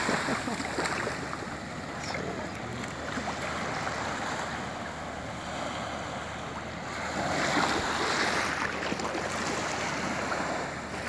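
Small waves lapping and washing up onto a sandy beach, growing louder for a couple of seconds about two-thirds of the way through, with some wind on the microphone.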